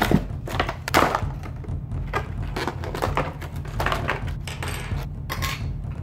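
Unpacking by hand: cardboard and plastic packaging handled and rustled, with a quick irregular run of clicks and light knocks as small items are taken out and set down on a wooden table.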